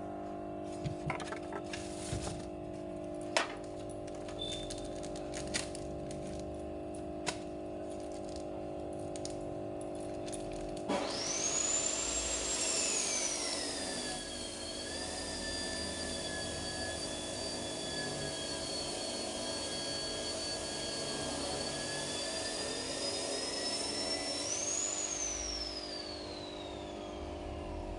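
A small electric motor switches on about eleven seconds in. Its whine rises sharply, settles to a steady pitch, then rises briefly and winds down, falling in pitch, near the end. Before it starts there are a few light clicks and knocks over a steady low hum.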